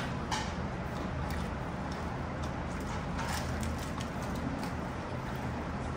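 A person chewing food close to a clip-on microphone, with soft, irregular mouth clicks, over a steady low room hum.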